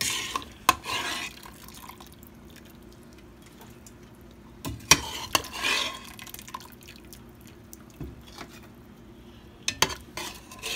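Boiled pig feet being lifted from a pot and set down in a pan: a utensil clinks and clatters against the cookware with a few sharp knocks near the start, about five seconds in and near the end, and there are wet dripping sounds in between.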